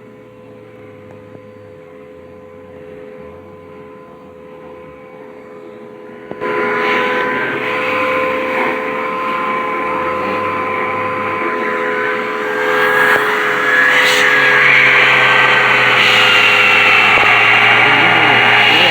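Vacuum cleaner motor running steadily with a constant hum. About six seconds in it gets suddenly much louder with a loud rush of air, and it grows louder again a little past the middle.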